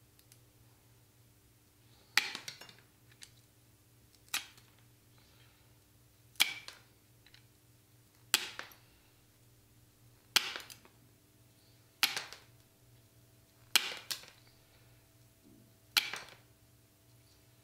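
Wheeled tile nippers snapping small bits off the edge of a ceramic tile to round it into a circle: eight sharp snaps, about one every two seconds, each trailing off briefly.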